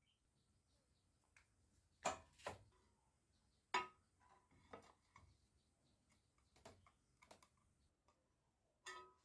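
A few faint, sharp clicks and taps at irregular intervals over near silence, the loudest about two seconds and four seconds in.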